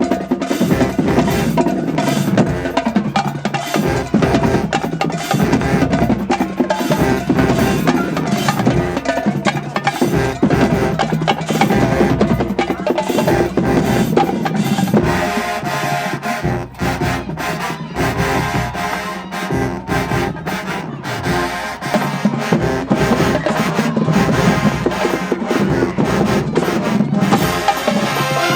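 College marching band drumline playing a fast cadence on snare and bass drums, with pitched band parts growing stronger about halfway through.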